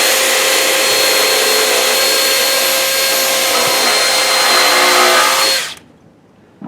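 Power drill with a pre-drill countersink bit, running steadily while boring a steep-angle pilot hole into a 1x board, then stopping about five and a half seconds in.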